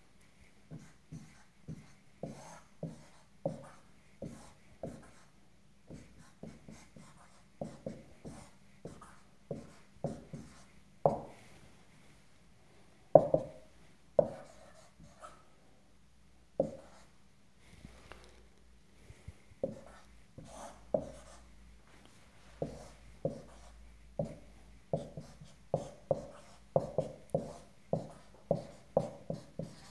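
Dry-erase marker writing on a whiteboard: a run of short, irregular strokes and taps as equations are written out, a few of them louder.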